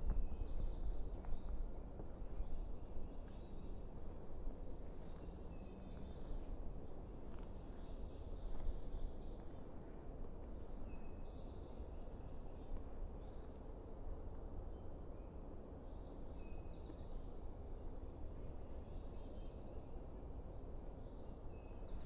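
Brown creeper singing twice, about ten seconds apart: a short, very high, sweet phrase of a few stepped notes. Other small birds sing lower between them, over a steady low wind rumble.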